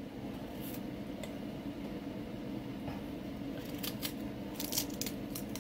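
Small kitchen knife scraping and pulling the tough outer skin off a broccoli stalk: a few short crisp scrapes and snaps, most of them about four to five seconds in, over a steady low hum.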